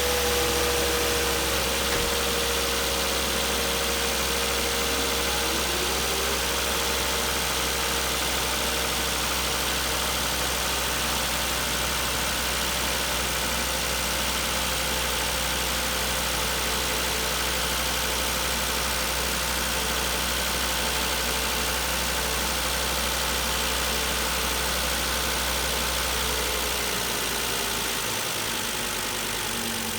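Volvo XC70 2.5T's turbocharged five-cylinder engine idling steadily just after starting. A faint whine slowly falls in pitch as the idle settles, and the low hum changes about 27 seconds in.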